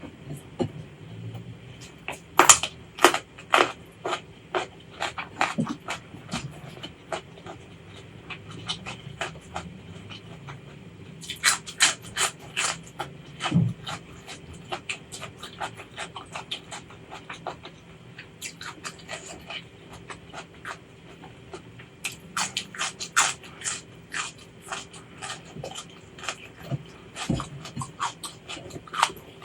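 Close-miked eating sounds of a person chewing, with wet smacking and crisp crunching clicks that come in clusters of bites, strongest about two seconds in, around twelve seconds in and again past twenty seconds.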